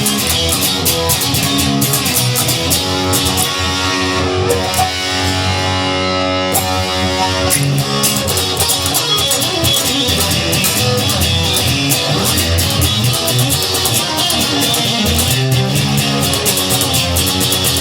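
Instrumental passage of a song: electric guitar and bass over a steady beat. The beat thins out for a few seconds early in the passage while held guitar notes ring.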